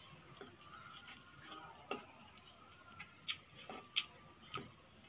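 Metal fork clinking and scraping against a glass plate while twirling noodles, several sharp clinks spaced irregularly.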